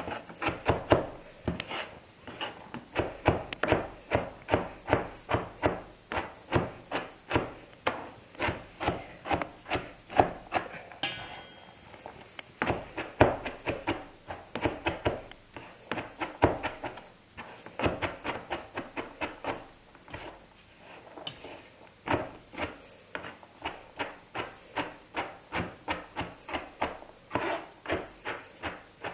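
Kitchen knife rapidly chopping diced carrots finer on a cutting board, the blade knocking on the board about three times a second, with a short lull about two-thirds of the way through.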